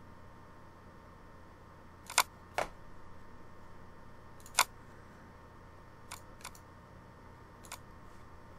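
Computer mouse button clicking: six short, sharp clicks over low steady hiss, some in pairs about half a second apart, the loudest a little over two seconds in and again near the middle.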